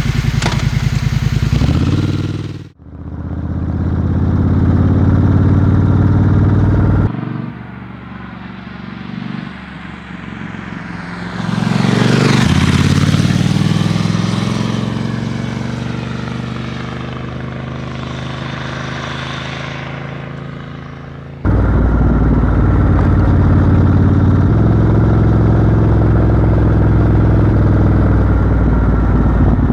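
Triumph Scrambler 1200 XE's parallel-twin engine running while being ridden at a steady pace. The engine note swells and falls in pitch near the middle. The sound changes abruptly a few times between shots.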